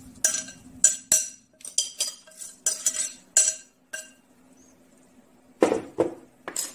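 Metal spoon scraping and clinking against mixing bowls as cooked potatoes are scooped from a ceramic bowl into a stainless steel bowl: a quick run of clinks and scrapes with a ringing note. After a short pause come a few heavier knocks near the end.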